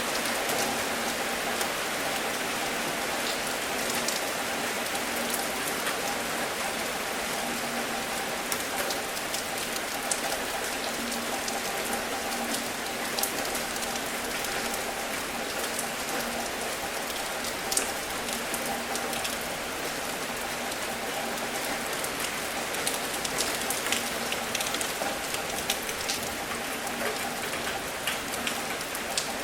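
Steady rain falling, with frequent sharp individual drops hitting close by.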